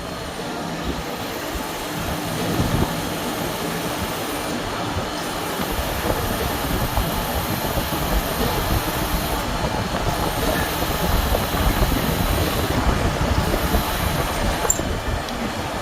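Milling machine running with a steady, dense mechanical rumble and clatter.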